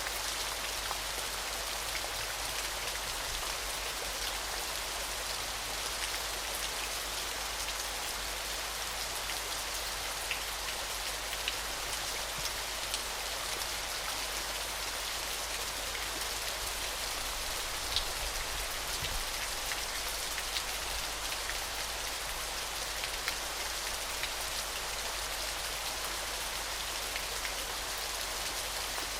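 Waterfall: a steady hiss of falling and splashing water, with scattered sharp ticks of drops.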